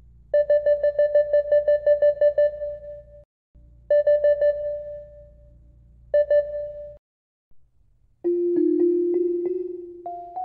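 Rapid runs of short, identical pitched beeps, about eight a second, in three bursts (a long one, a short one, a very short one): game-style dialogue text blips standing in for a character's voice as his speech box fills. About eight seconds in, a short keyboard melody begins, its notes stepping up near the end.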